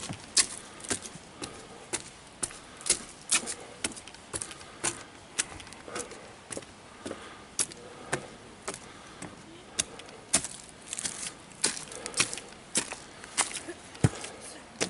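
Footsteps on wooden stairs and dry fallen leaves, about two steps a second, each a sharp knock with a leafy crunch.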